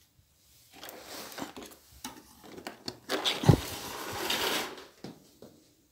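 Rustling, scraping handling noises with clicks and one sharp thud about three and a half seconds in, as the vacuum cleaner's power cord is pulled out and its plug pushed into the socket.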